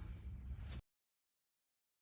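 Faint room tone that cuts off abruptly to complete silence less than a second in.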